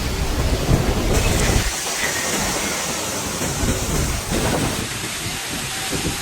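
Storm noise of wind and rain: a heavy low rumble for the first second and a half or so, then a steady rushing hiss.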